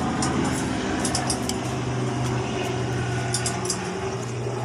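A steady low engine hum underneath light metallic clicks and taps as carburetor parts are handled.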